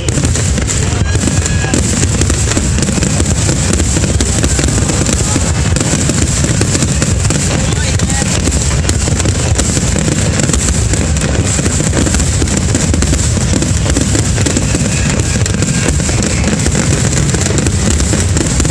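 Dense barrage of aerial fireworks bursting, heavy booms and crackles overlapping without a break.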